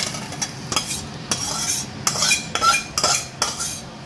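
Metal spatula scraping and clinking against a kadai and a metal bowl as fried prawns are scooped out, a run of irregular short scrapes with a few ringing clinks.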